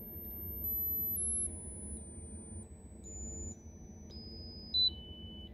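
Piezo speaker salvaged from a carbon monoxide detector, driven by a signal generator, sounding a single steady high-pitched tone. The tone drops in pitch in about ten distinct steps, from a squeal near the top of hearing down to a mid-high beep near the end.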